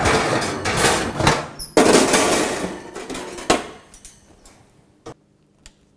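Wire oven racks being pulled out of a gas oven, metal scraping and clanking against the rack supports. The noise dies away after about three and a half seconds, and two faint clicks follow near the end.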